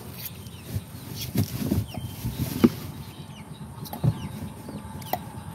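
A large kitchen knife knocks and scrapes on a round wooden chopping board as an eel is cut. There are half a dozen irregular sharp knocks, the loudest about two and a half seconds in and another about four seconds in. Faint short bird chirps sound in the background.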